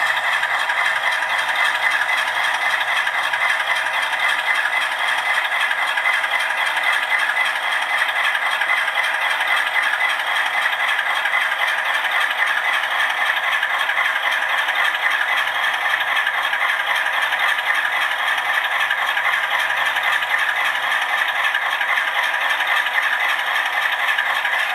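Diesel locomotive engine sound from an ESU LokSound decoder in an HO-scale GE C39-8 model, running steadily as a dense, even rattle through a small speaker that gives almost no bass.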